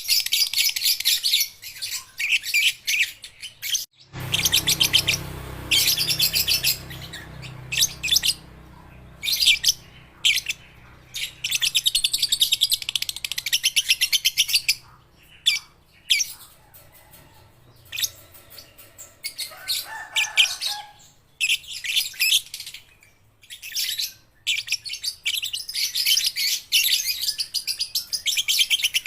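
Young lovebirds chattering in repeated bursts of rapid, high-pitched trilling with short pauses between, the long 'ngekek' chatter.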